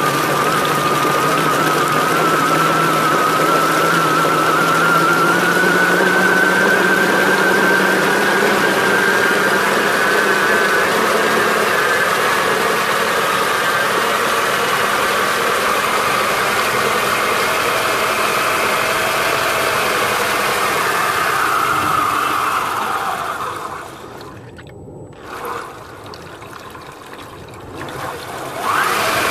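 3D-printed RC snow blower's electric motor and ABS-geared transmission running under load, its impeller churning water and flinging it out the chute. The whine rises slowly in pitch, then falls away about 23 seconds in, and a brief loud burst comes right at the end.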